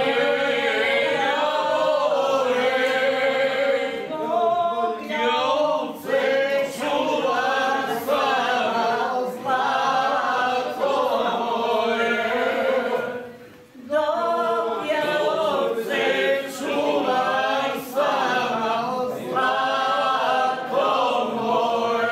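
A small group singing unaccompanied, led by men's voices, holding long notes; the singing breaks off briefly about halfway through, then carries on.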